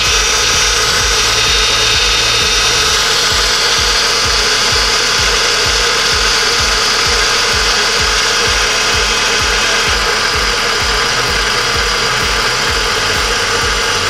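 Volkswagen CrossFox's engine running steadily, with its hydraulic power steering pump turning while air is bled out of the system after a steering rack replacement.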